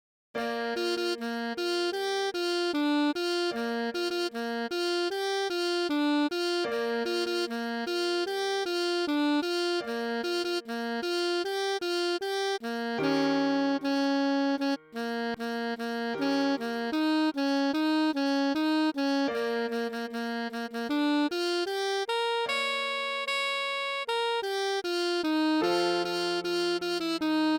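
Alto saxophone playing the tune's melody slowly, one note after another at a few notes a second, with a lower note held underneath at times.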